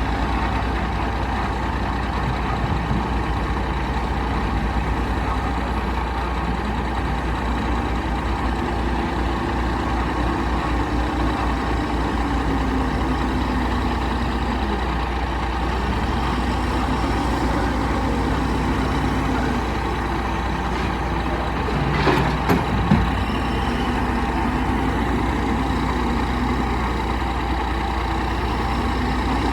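Diesel engine of a JCB 3CX backhoe loader running under load while loading stone, its revs rising and falling as it works. A short cluster of knocks comes about three-quarters of the way through.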